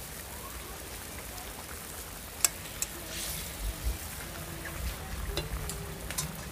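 Fish curry simmering in a metal kadai over a wood fire: a steady bubbling hiss. A few sharp clinks of the metal spatula against the pan as it is stirred, the loudest about two and a half seconds in.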